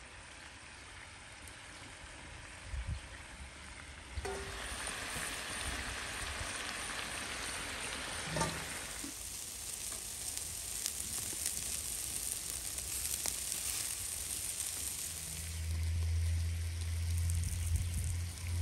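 Meat sizzling on a wire grill over hot charcoal: a steady hiss that grows louder about four seconds in. A low steady hum comes in near the end.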